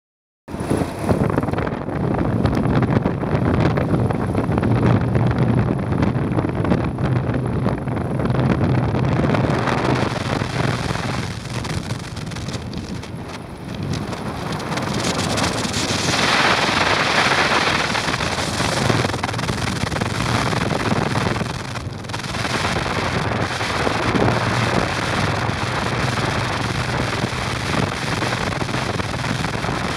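Wind rushing over the microphone of a moving motorcycle, over the steady low hum of its engine, with a louder gust of wind noise about sixteen seconds in.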